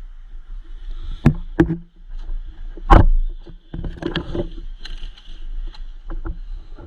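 A series of irregular sharp knocks and thumps, the loudest about three seconds in and a quick cluster a second later, over a low rumble and a steady high buzz.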